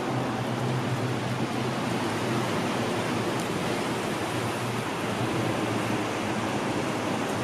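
Steady hiss of falling rain, with a faint steady low hum underneath.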